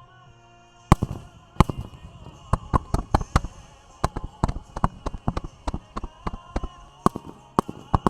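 Aerial fireworks shells bursting in a rapid barrage of sharp bangs, starting about a second in, over music.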